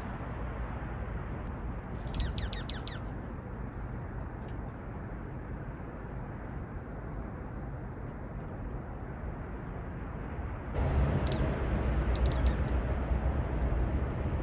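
Juncos giving clusters of short, very high-pitched chirps, some sweeping quickly downward like laser zaps, in bursts near the start and again later. A steady rushing background noise underneath gets louder about eleven seconds in.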